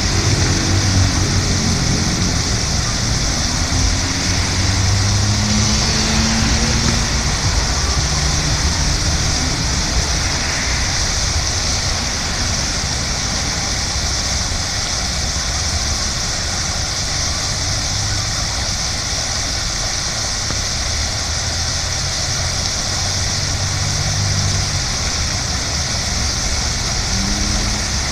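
Fountain jets splashing steadily into a water-filled basin, a continuous hiss of falling water, over a steady low rumble.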